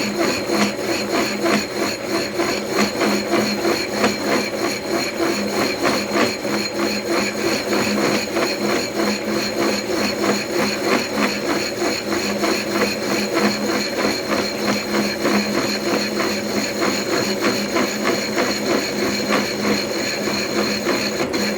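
Milling machine running under a heavy cut in metal: a steady motor hum with a fast, continuous rattling chatter from the cutter, a sign the cut is too aggressive for the machine.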